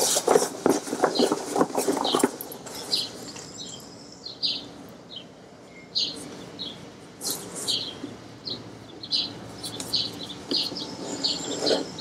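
A neoprene wetsuit rustling as it is handled for the first two seconds. Then small birds chirping in short, high calls, about two a second.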